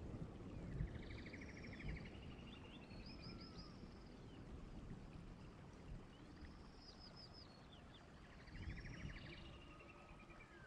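Faint bird song: a phrase of quick high chirps and a fast trill, heard twice about five seconds apart, over low rumbling background noise.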